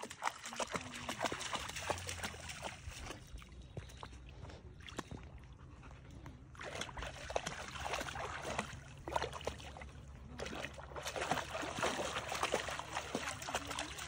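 Labrador wading and pawing through shallow lake water, its legs splashing and sloshing in uneven bursts, with two quieter lulls.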